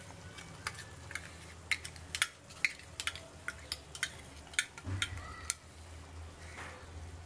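A metal spoon clinking and scraping against a small steel bowl in quick, irregular taps as mustard paste is scooped out, over a faint low hum.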